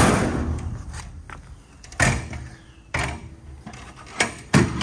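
Retractable folding hard bed cover on a truck service body, its hinged panels being pulled out: a sliding rattle at first, then a few sharp knocks about two, three and four and a half seconds in as the panels drop into place and the latch handle is worked.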